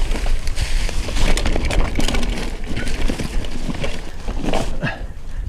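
Mountain bike riding over a rocky trail: tyres crunching on stones and the bike rattling with many quick knocks, over a constant low rumble.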